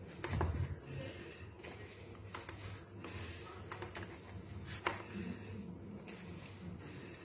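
Hands kneading a stiff whole-wheat dough in a plastic bowl: soft squishing and rubbing, with a dull thump just after the start and a sharp knock about five seconds in.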